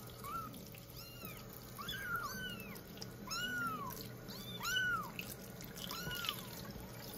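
Young kittens mewing over and over, short high-pitched arching cries about one a second, while one is held and wetted under running tap water for its first bath. A thin stream of tap water runs and trickles beneath the cries.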